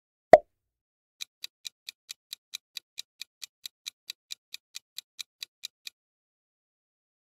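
A short pop sound effect, then a clock-ticking countdown sound effect: light, evenly spaced ticks at about four to five a second, stopping a little before six seconds in.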